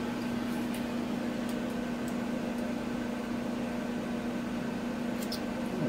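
A steady machine hum, one unchanging tone over a faint even hiss, with a few faint ticks.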